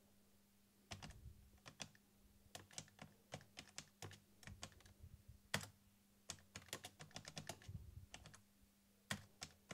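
Typing on the keyboard of an Amstrad NC100 Notepad computer: quiet key clicks in irregular runs, with short pauses near the start and again near the end.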